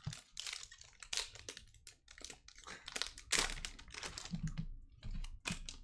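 Foil wrapper of a 2021 Panini Contenders football card pack crinkling in the hands as it is opened and the cards are pulled out, a rapid run of irregular crackles.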